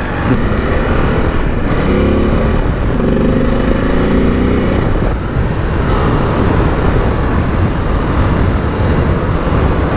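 Ducati DesertX Rally's 937 cc twin-cylinder engine pulling away and accelerating on the road. Its pitched engine note stands out between about two and five seconds in, over steady road and wind noise.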